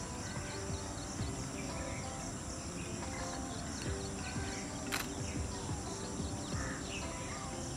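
Natural outdoor ambience: a steady high insect drone with scattered short bird chirps, over soft background music, and a single click about five seconds in.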